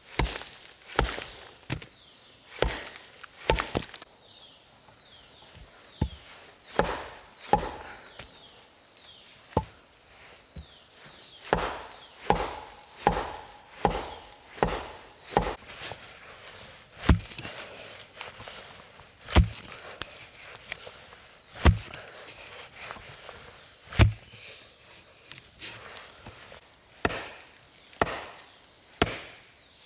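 Wood being chopped with an axe: a long run of sharp chopping strokes, about one a second, with a few short pauses between bursts.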